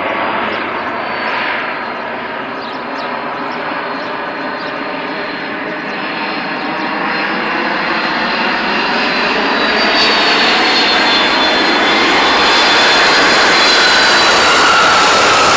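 Jet airliner's engines: a steady noise with a high whine that grows gradually louder as the aircraft approaches.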